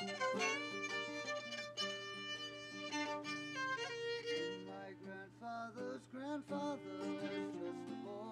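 Fiddle and acoustic guitar playing a folk tune without singing: the fiddle carries the melody in long bowed notes, then about halfway through moves into shorter notes with slides, over the strummed guitar.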